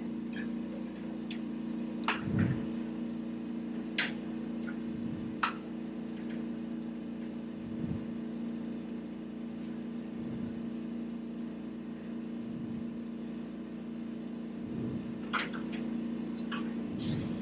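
Steady electric hum of equipment running, with a few light clicks and taps, most of them two to five seconds in and again near the end.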